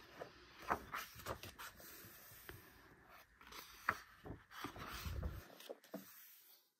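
Quiet handling of a boxed album: scattered light clicks, taps and rustles of cardboard and paper, with a soft low thump a little after five seconds.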